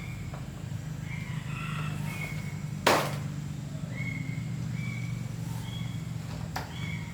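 A single loud, sharp knock about three seconds in, and a fainter one near the end, over a steady low hum. Short, high chirps of birds or fowl come and go throughout.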